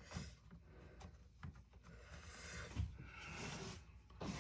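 Faint handling noises: soft rubbing and a few light clicks of small parts being worked by hand.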